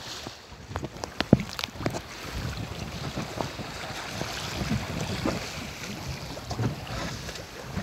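Wind buffeting the microphone over steady sea noise and water washing against the hull of a jangada sailing raft, with a few light knocks about a second in.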